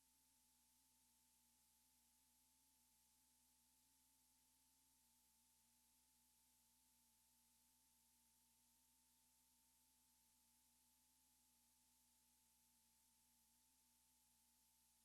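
Near silence: a faint steady hiss with two faint steady tones, one low and one higher.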